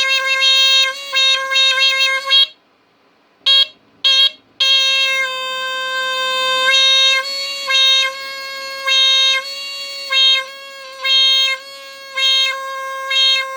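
Old First Alert SA76RS smoke detector's horn sounding one steady, piercing tone. It swings between loud and muffled as a hand covers and uncovers the horn's output hole. It cuts out for about a second near the 3-second mark, gives two short blasts, then carries on.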